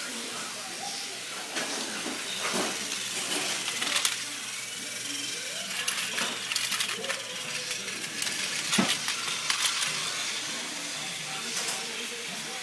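Motorised toy train running on plastic track: irregular light clicks and clinks over a steady hiss.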